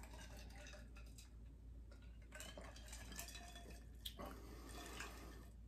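Quiet room with a few faint clinks of ice in wine glasses as the drinks are sipped and lowered.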